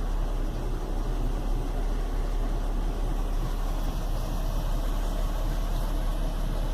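Chevy Venture's 3.4-litre V6 idling warm, steady but with a rumble to it: a rough idle that turned out to be caused by a failed hydraulic motor mount.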